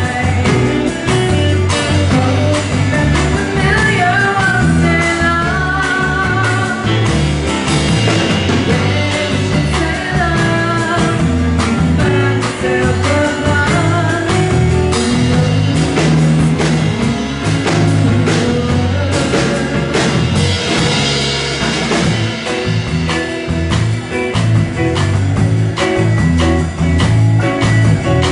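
A live band playing: drum kit, bass and grand piano with guitar, and a wavering lead melody line over them.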